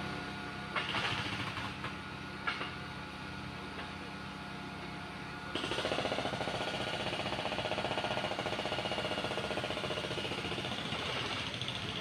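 Urban vehicle engine noise: an engine running steadily, with louder engine noise coming in suddenly about five and a half seconds in and easing off near the end.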